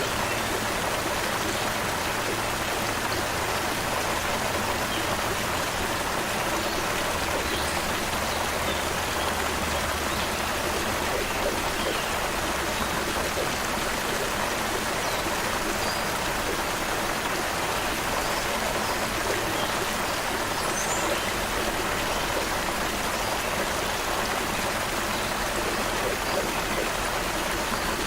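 Creek water running steadily over stones, an even rushing that does not change, with a few faint bird chirps now and then above it.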